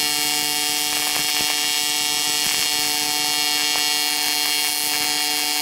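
AC TIG welding arc on cast aluminum, buzzing steadily at an even pitch while filler rod is fed in, laying a big tack weld to hold a cracked ear in place.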